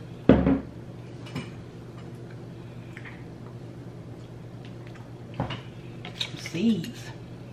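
A single dull thump just after the start, then a few faint light clicks of handling at the food tray, over a steady low room hum. A short spoken word comes near the end.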